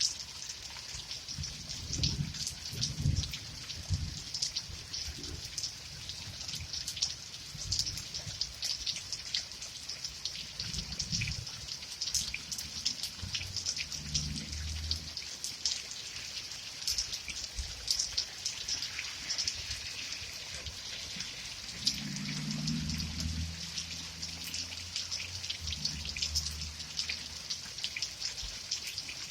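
Steady rain, with many separate drops ticking as they land. Low rumbles come and go, the longest in the last third.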